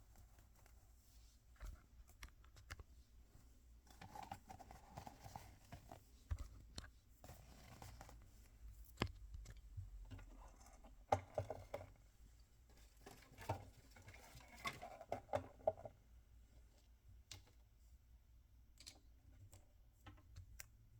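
Hands opening and handling small toy packaging: scattered light clicks and taps with bouts of rustling and tearing, busiest in the middle stretch and quieter near the end.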